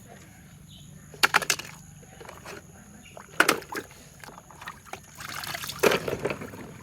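Water splashing and sloshing as plastic toy trucks are washed, with a quick cluster of sharp knocks about a second in, another knock a couple of seconds later, and a longer splash near the end.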